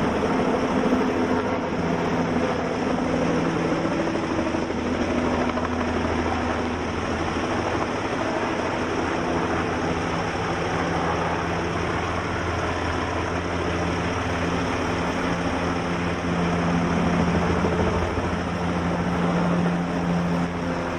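A steady engine drone with a continuous low hum, unbroken throughout.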